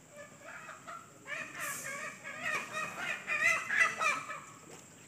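Bird calls: a run of short clucking notes that grows louder about a second in and stops near the end.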